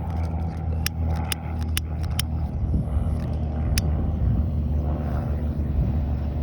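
A motor vehicle's engine idling steadily, a low hum, with a handful of sharp clicks in the first few seconds; no firecracker bang.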